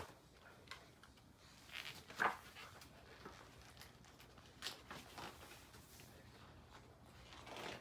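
Faint rustling and brushing of a large paperback picture book's pages being turned by hand: a few brief soft sounds, the clearest about two seconds in.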